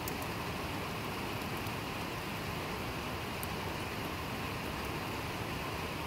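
Steady rain falling on paving stones and lawn: an even hiss, with a few faint drop ticks.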